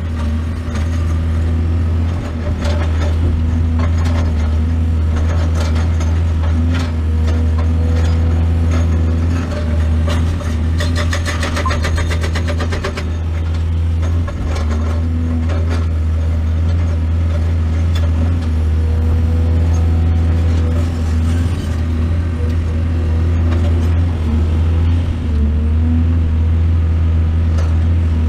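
Excavator's diesel engine running steadily with a deep hum, with scattered knocks and clatter from the machine at work loading soil.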